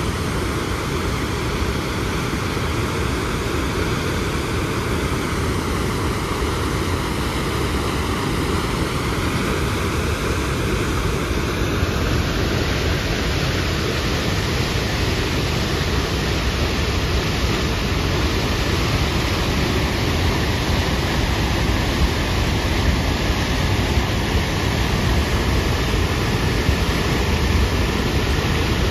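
Steady, unbroken rush of the Upper Tahquamenon Falls, a wide waterfall pouring into a foaming river. Its tone shifts slightly about twelve seconds in.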